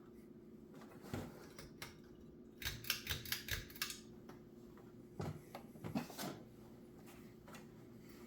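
Halsey ceiling fan's motor humming steadily, with irregular sharp clicks and knocks over it, a quick run of them about three seconds in and a few more around five to six seconds in.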